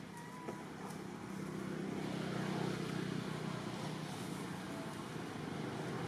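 Low, steady engine hum of a motor vehicle running, swelling to its loudest about two to three seconds in and then easing a little.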